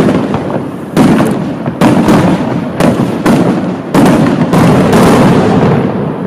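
Fireworks display: aerial shells bursting in quick succession, about seven loud bangs roughly a second apart, each trailing into a low rolling rumble, easing off near the end.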